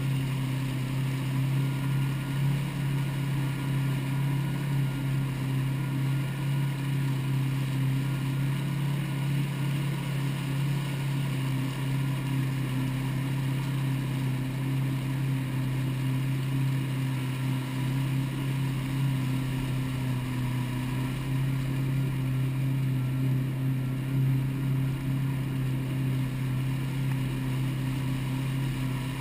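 Jet ski engine running at a steady cruising speed, a constant unchanging drone, with water spraying and rushing along the hull.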